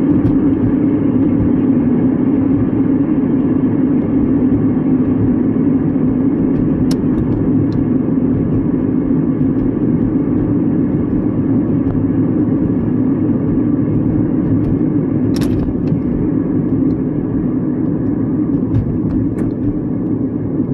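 Steady road and engine noise heard inside the cabin of a moving car, mainly a strong low hum, with a couple of faint brief clicks. It eases slightly near the end.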